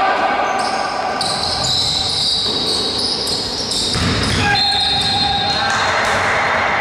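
Basketball game sounds on a hardwood gym court: sneakers squeaking in short high chirps as players run and cut, the ball bouncing, and players calling out.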